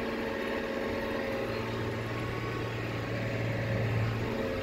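Diesel engine of a loaded harvest machine running steadily under load, heard from inside its cab, with a low hum that grows louder about a second and a half in and eases off near the end.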